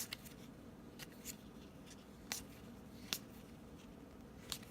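Baseball trading cards being handled and flipped through by hand: a handful of faint, sharp clicks of card against card, spaced irregularly about a second apart.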